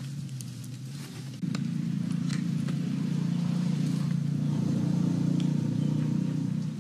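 Wood fire crackling under a wok, with scattered sharp pops, over a steady low engine-like hum that turns louder about a second and a half in.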